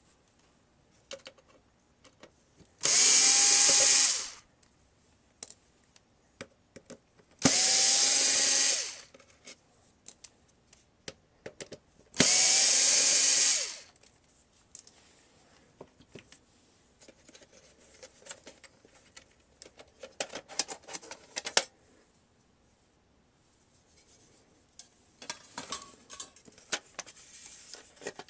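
Electric screwdriver with a T8 Torx bit running in three bursts of about a second and a half each, backing out screws; each burst rises in pitch as the motor spins up and falls as it stops. Light clicks and rattles of screws and handling follow.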